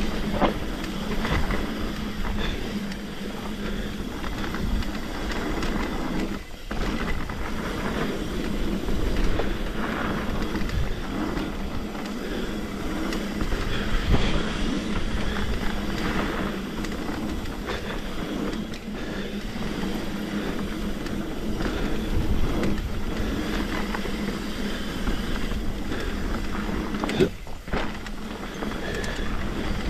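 Trek Remedy 8 mountain bike descending a wet dirt trail: a steady noise of tyres on the ground with constant small knocks and rattles from the bike over bumps. The noise briefly drops away twice, about six seconds in and near the end.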